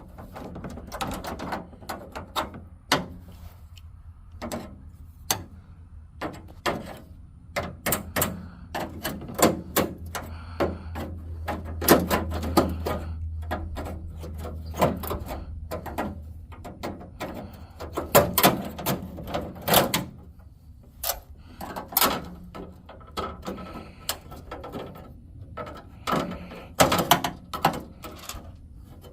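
Irregular clicks, knocks and scraping rattles as the felt window trim strip is worked out from behind its small retaining clips in a truck door, over a low steady hum.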